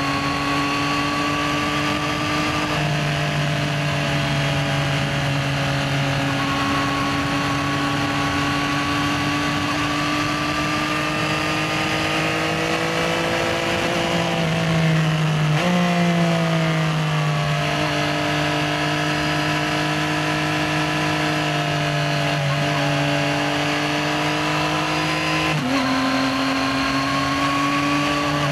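Yamaha XSR900's three-cylinder engine running steadily under way, its pitch climbing slowly through each gear and dropping in a step three times as it shifts up.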